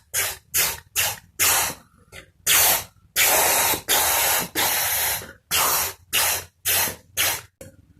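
Mouth-made hissing effect: a series of about fifteen sharp hiss bursts, short and quick at first, longer in the middle, then short again toward the end.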